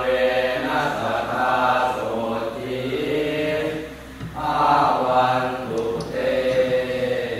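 Thai Buddhist prayer chanting (suat mon): voices intoning on a sustained, even pitch, with a brief breath pause about four seconds in.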